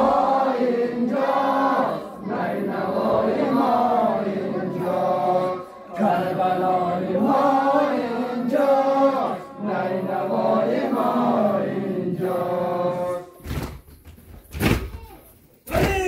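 Young male voices chanting a Muharram nowheh (Shia mourning lament) together in a sung, wavering melody. The chant breaks off about three seconds before the end, followed by a few sharp knocks.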